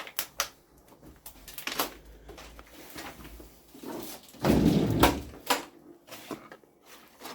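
Scattered knocks and clicks in a small room, loudest about four and a half to five seconds in.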